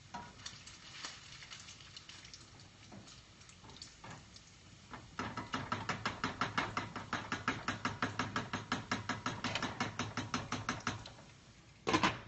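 A cooking utensil tapping rapidly against a frying pan of bacon, about six strokes a second for several seconds from about five seconds in. Near the end, a loud clank as the lid is set on the pan.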